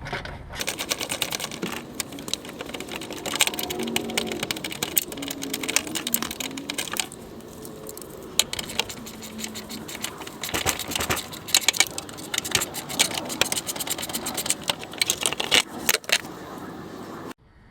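Socket wrench clicking and metal tools clinking as the 10 mm bolts holding a car's splash guard are backed out and the guard is worked loose, many irregular clicks and knocks; the sound cuts off suddenly near the end.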